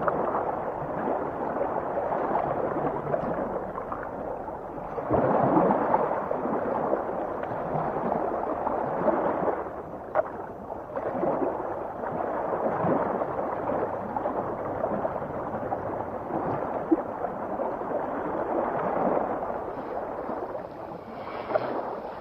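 Underwater ocean noise: water gurgling and churning, with uneven swells and a few brief pops, loudest about five to six seconds in.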